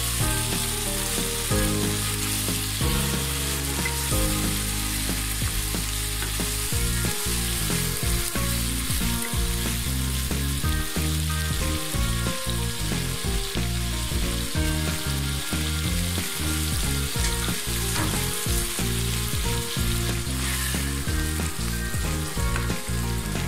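Chicken gizzards and livers with onions sizzling steadily in hot oil in a nonstick frying pan, stirred at times with a wooden spatula.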